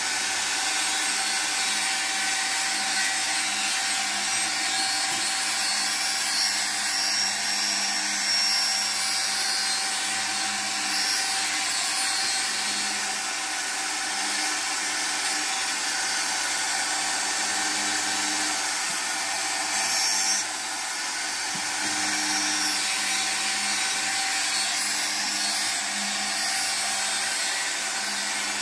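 Handheld angle grinder cutting ceramic tile: a steady grinding whine, with a short surge about twenty seconds in and slightly quieter after it.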